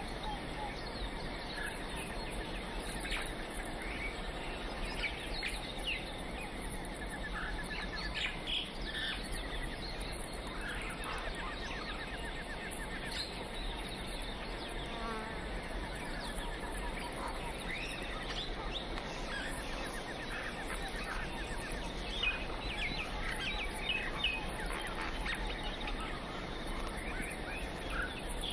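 Natural forest soundscape: many birds chirping and trilling at random intervals, with insects buzzing, over a steady background hiss.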